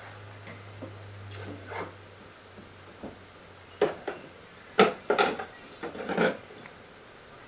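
Knocks and clatters of a toy play kitchen's parts being handled by a small child: a few light taps, then a quick cluster of sharper knocks about four to six and a half seconds in. A faint low hum runs under the first half.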